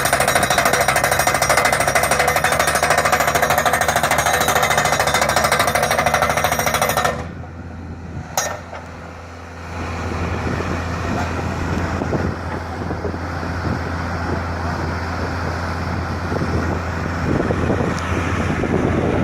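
Loud, dense mechanical rattle that cuts off suddenly about seven seconds in, followed by a single sharp click and then a lower, steady rumble.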